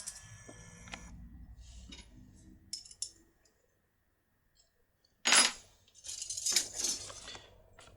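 Small metal lockpicks clinking and rattling as they are handled, with a loud short scrape about five seconds in and a longer rustling scrape just after.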